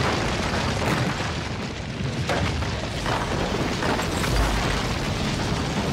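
Building implosion heard from a distance: a continuous low rumble with several sharp cracks scattered through it.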